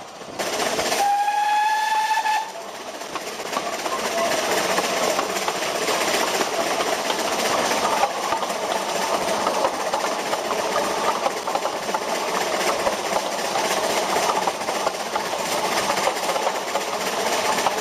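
Narrow-gauge steam locomotive whistle blown once shortly after the start: one steady, slightly rising tone lasting about a second and a half. It is followed by the continuous running noise of the steam train, the locomotive working at full steam up the gradient.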